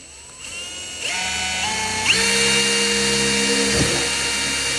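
Electric drill motor speeding up in two steps, then whining steadily, while a 4.5 mm bit bores a hole through a lamp pipe.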